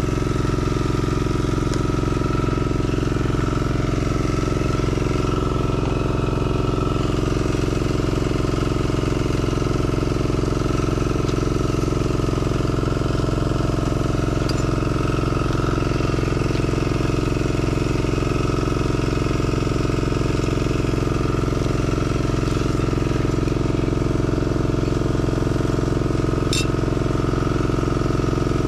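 A small engine running steadily at an even speed, with a fast low flutter and no change in pitch or level.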